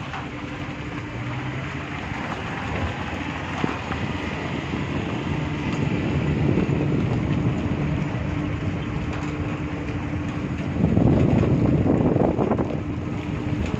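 Engine and road noise of a moving pickup truck, heard from its open load bed, with a steady low hum and wind buffeting the microphone. The noise swells for about two seconds near the end.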